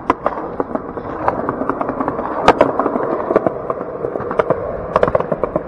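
Skateboard wheels rolling fast over a concrete sidewalk: a steady rough rumble broken by many sharp clicks and knocks, the loudest about two and a half seconds in.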